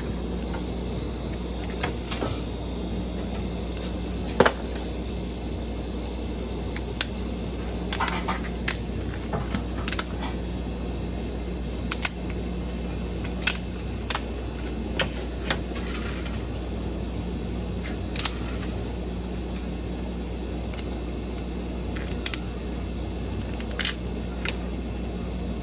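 Cooked crab shells being cracked and picked apart by hand: irregular sharp clicks and cracks, about a dozen, the loudest about four seconds in, over a steady low hum.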